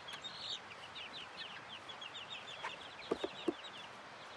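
Young chicks, about five weeks old, peeping continuously in their coop, with short high peeps several a second. Three short, louder, lower sounds come close together a little past three seconds in.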